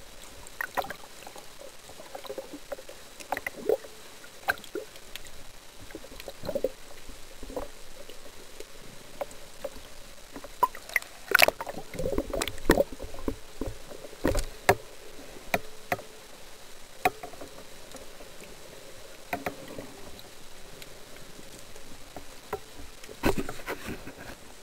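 Underwater recording of a speargun and its shaft and line being handled, with a speared sea bass on the shaft: irregular sharp clicks and knocks over a low murmur of water. The knocks come thickest and loudest about eleven to fifteen seconds in, with another cluster near the end.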